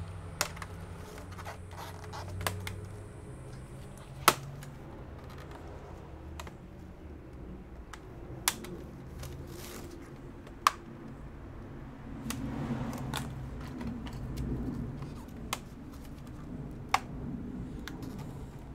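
Sharp, scattered clicks and taps of laptop parts being handled during disassembly, with some soft scraping about two-thirds of the way through, over a low steady hum.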